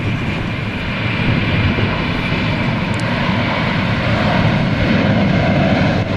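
A Boeing 747-400's four Pratt & Whitney PW4056 turbofans at takeoff thrust during the takeoff roll: a loud, steady, deep jet rumble. A thin high whine fades out over the first couple of seconds.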